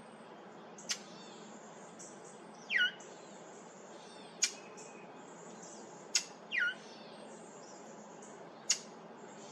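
Brown thrasher giving sharp single chip notes every couple of seconds, mixed with two louder calls that slide quickly downward in pitch, near three seconds in and again near six and a half. These are the bird's unfamiliar calls, not its usual song.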